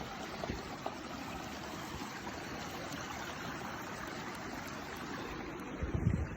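Steady rush of flowing water, like a mountain stream. A brief low thump comes near the end.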